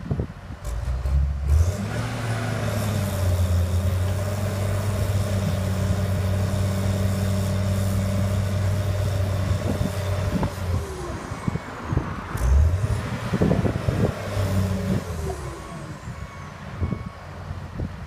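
Heavy construction-equipment diesel engine revving up and working hard under load, holding a steady high pitch, then dropping off and surging again about two-thirds of the way through, with a few sharp clanks of machinery.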